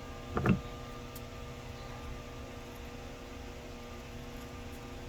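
Steady electrical hum with a few fixed tones, and one short sharp sound about half a second in.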